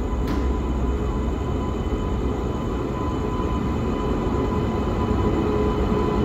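Train running at a railway station: a steady low rumble with a steady hum of several fixed tones above it. A faint brief click about a third of a second in.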